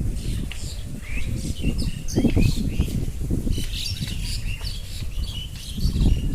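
Several birds chirping, many short quick calls and rising or falling chirps overlapping, over a low rumble on the microphone.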